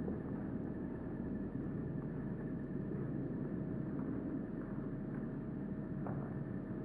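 Steady outdoor background noise: a low rumble with hiss and a faint constant hum, with no distinct events.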